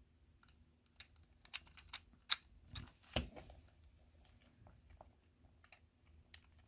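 Scattered light clicks and clatter of plastic Lego pieces being handled as a Lego key is slid into a brick-built gravity-pin lock. The sharpest clicks come a little over two and three seconds in.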